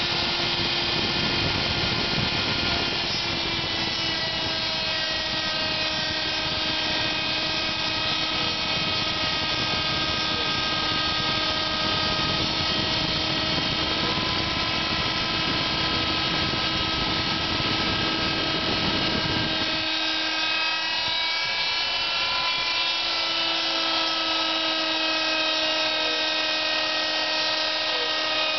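Hand-router spindle of a home-built CNC router running at speed and milling a profile in a board: a steady whine with several overtones that shift slightly in pitch as the load changes, over a rougher lower noise that drops away about two-thirds of the way through.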